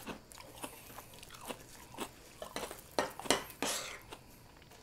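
Metal spoons clinking and scraping in bowls of homemade ice cream and cereal, with chewing. A scatter of short clicks, the loudest about three seconds in.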